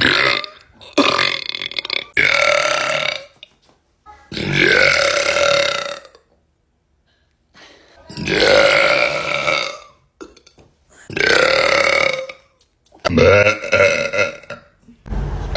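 A woman burping loudly again and again: about seven long, drawn-out burps of a second or two each, with short pauses between them.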